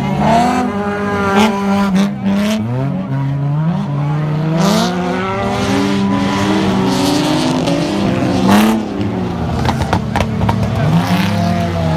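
Engines of several autocross cars in the over-1600 cc class revving hard on a dirt track, their pitch rising and falling and overlapping as they accelerate and shift through the bends, with a few short sharp cracks.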